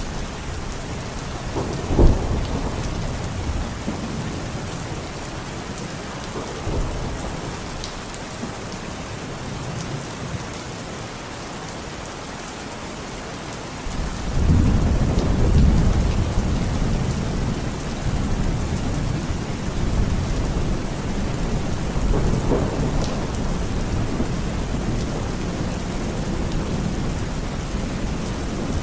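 Heavy steady rain with thunder: a sharp clap about two seconds in, then a long low rumble that rolls in about halfway through and lingers, swelling again later.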